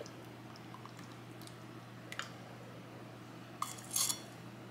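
A few faint sharp clicks and taps on a glass mason jar packed with chicken and sauce while it is being debubbled, the loudest cluster near the end, over a steady low hum.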